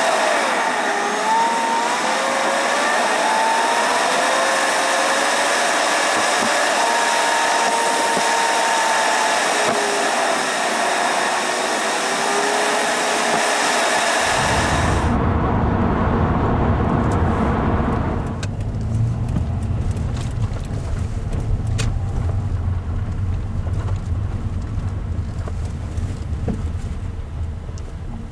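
Car driving, heard from inside the cabin: for about half the time a steady hiss with faint wavering whistles, then it switches suddenly to a low steady engine and road rumble.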